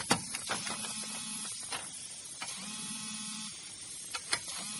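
Pneumatic impact wrench fitted to a wheel lug nut, run briefly at low speed in two short spells of about a second each, with a few sharp clicks from the socket.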